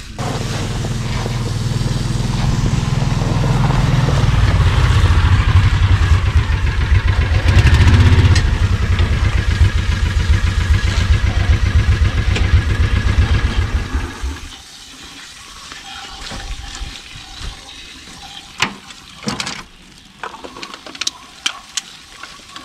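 A utility vehicle's engine running steadily, growing louder in the middle, then stopping about fourteen seconds in. After it, a garden hose sprays water: a quieter hiss with scattered sharp knocks.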